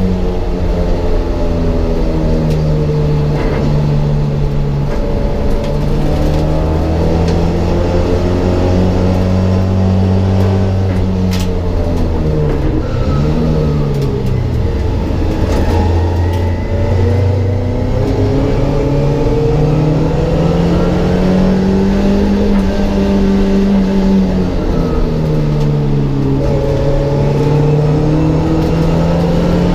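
Mk1 Ford Escort race car engine heard from inside the stripped cabin, running hard under load. Its note holds high for stretches and twice drops and climbs back up, about twelve seconds in and again near the end, as the revs fall and rise through the gears.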